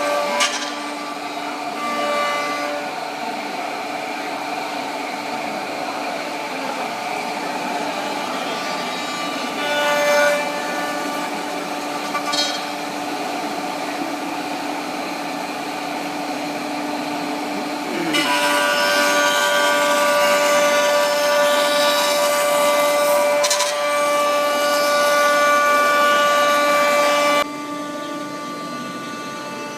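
Spindles of a 5-axis, 10-head CNC wood router running with a steady whine while cutting wood. The cutting noise grows louder about two-thirds of the way through and drops off suddenly near the end.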